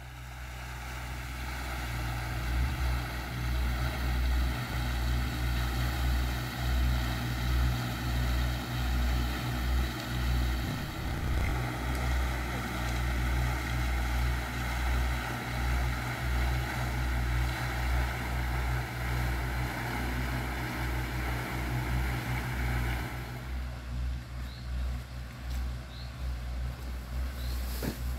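Steady rushing of a tall fountain jet spraying and falling back onto a pond, with wind rumbling on the microphone. The rushing drops away about 23 seconds in, leaving the low rumble and a few faint high chirps.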